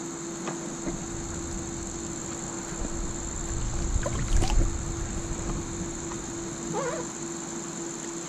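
Steady high-pitched insect chorus over low rumbling handling and water noise, with a sharp knock about four and a half seconds in.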